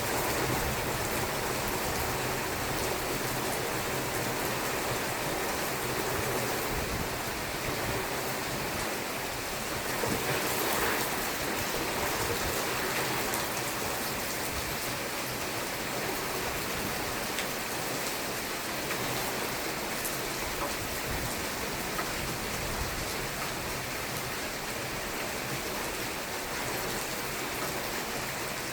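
Steady rain falling during a thunderstorm, swelling slightly louder for a moment about a third of the way in.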